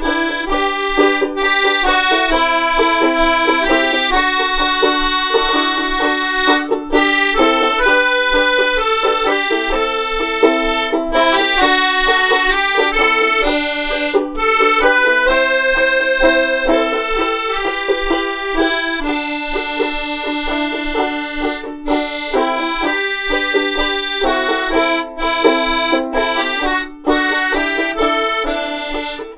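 Instrumental folk tune on accordion, whose sustained chords and melody dominate, with a banjolele accompanying beneath.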